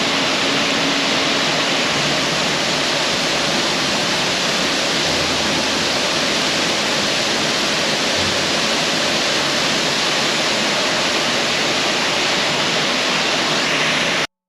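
Waterfall pouring, a loud, steady rush of falling water that cuts off abruptly near the end.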